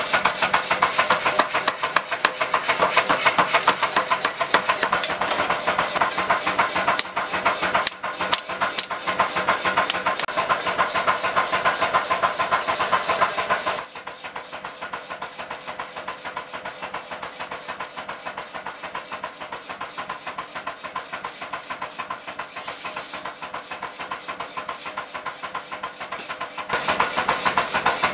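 Blacksmith's forge with its electric air blower running, a steady mechanical hum with a fast, dense pulsing over the burning fire. It drops noticeably quieter about halfway through and rises again near the end.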